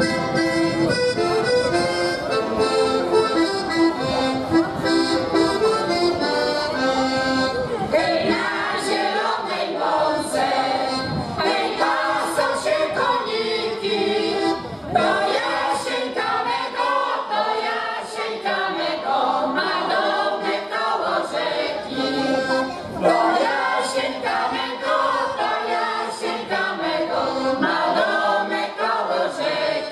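Accordion playing a folk tune, alone for about the first eight seconds, then a women's folk choir comes in singing with the accordion.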